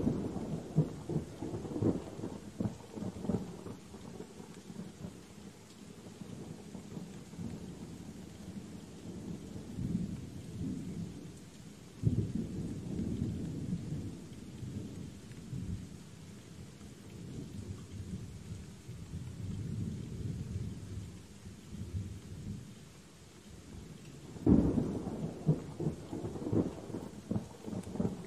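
Steady rain with thunder. A sharp crack and rolling rumble comes right at the start, another roll of thunder about twelve seconds in, and a third crack and rumble near the end.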